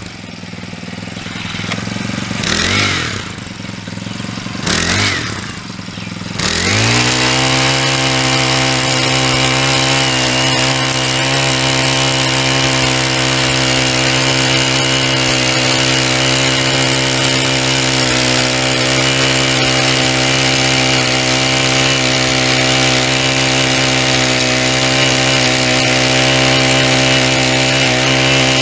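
Earthquake MC 440 mini cultivator's small four-stroke engine drops to a low idle, revs briefly twice, then is throttled up at about seven seconds. It then runs steadily at high speed while the tiller works the soil.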